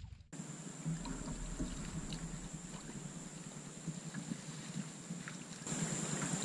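Water sloshing with faint small splashes as a person wades chest-deep through lake water among floating water spinach, over a steady faint hiss; it begins just after a brief drop-out at the start.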